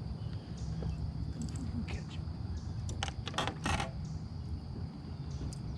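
A fishing rod and reel in use: a cast with a few quick bursts of line and lure noise about three seconds in, and scattered clicks from the reel. A steady low hum runs underneath.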